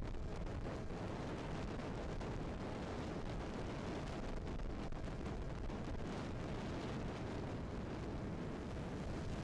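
Steady rumbling wind buffeting the microphone of an aluminium fishing boat running at speed, under the drone of its 1990 Mercury 25 hp outboard and water rushing along the hull.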